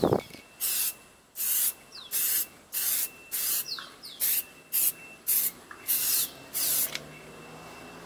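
2K clear coat aerosol spray can spraying in about ten short, quick bursts of hiss, laying a light first coat onto a headlight lens.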